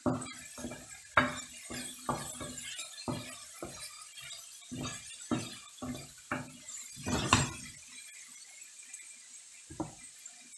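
An irregular run of sharp clinks and knocks from hard objects, about fifteen over seven seconds, then a single one near the end.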